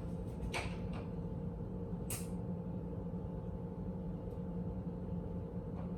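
Steady low hum, with two brief handling noises about half a second in and two seconds in.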